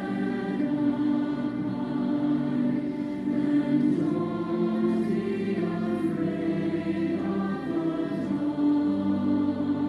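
Choir singing a slow hymn in long held notes.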